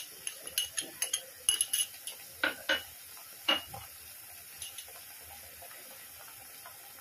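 Light clinks and taps of a small glass bowl and steel utensils against a steel kadhai as ground spices are tipped in: about a dozen short ringing clicks over the first three and a half seconds.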